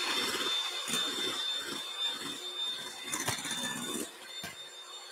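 Electric hand mixer running, its beaters whipping egg whites in a glass bowl toward stiff peaks. A steady high whine sounds over the whisking, with a few sharp clicks, and the sound grows quieter toward the end.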